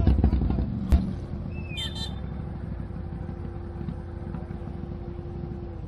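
ATV engine running loud, then dropping to a steady low idle after a sharp knock about a second in.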